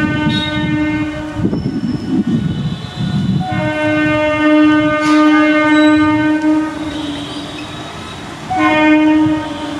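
MEMU electric multiple unit train sounding its horn three times: a blast that ends about a second in, a long blast of about three seconds, and a short one near the end. The low rumble of the train running on the track fills the gaps between them.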